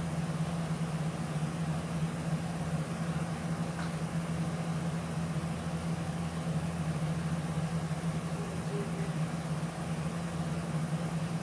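Steady low mechanical hum over a faint hiss, unchanging throughout, like a motor running at a constant speed.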